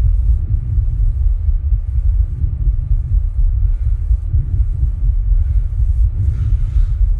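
Human heart sounds, recorded while the person rebreathes from a plastic bag: repeated soft beats over a steady deep rumble, with a brief faint hiss near the end.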